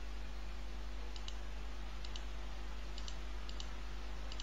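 Computer mouse button clicks, about five, each a quick double tick of press and release, over a steady low electrical hum and hiss.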